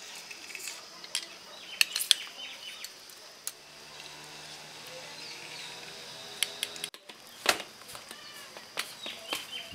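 Hands squeezing lemon over spice powder in a stainless steel bowl and then mixing it: scattered sharp clicks and taps against the bowl, loudest about two seconds in and again near the end. Birds chirp faintly in the background.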